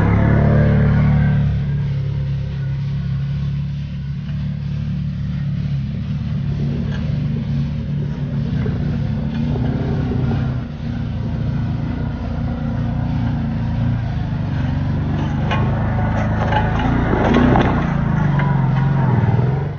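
Side-by-side UTV engines running under load on a steep dirt trail, with tyres spinning in loose dirt near the start. Near the end a Kawasaki Teryx 4's V-twin engine passes close by and is loudest, with the crunch of rocks under its tyres.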